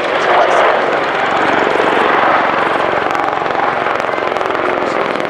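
AgustaWestland Apache attack helicopter in flight, its rotor noise loud and steady as it banks through a display manoeuvre.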